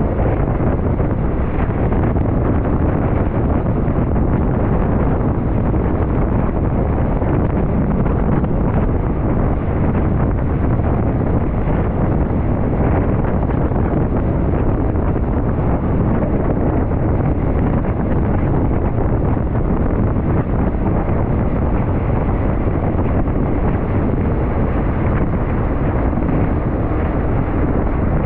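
Steady, loud rushing noise with a deep rumble and no distinct events.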